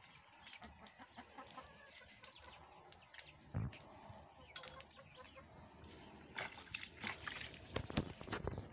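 Chickens clucking close by, with a heavy knock about three and a half seconds in and a run of sharp knocks and clicks near the end as a roasted goat head is handled on a wooden plank.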